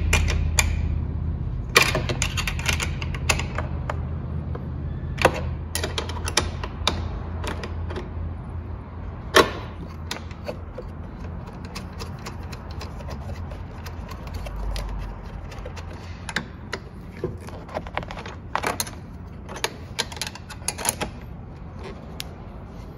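Small 7/16 wrench tightening a car door mirror's mounting nuts onto their studs: irregular, sharp metal clicks and taps of the wrench on the nut. A low hum runs under the first several seconds and then fades.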